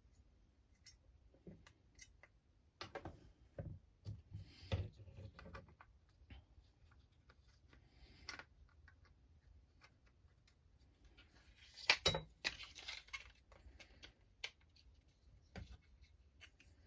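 Scattered light clicks, taps and rustles of small RC truck chassis parts being handled and fitted by hand, busiest a few seconds in, with the loudest click and a brief rustle about twelve seconds in.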